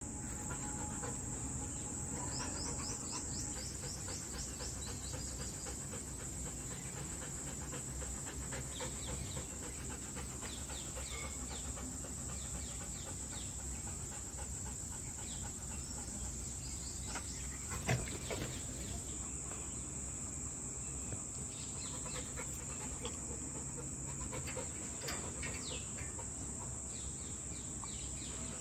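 Outdoor background of small birds chirping over a steady, high-pitched insect drone, with one sharp knock about eighteen seconds in.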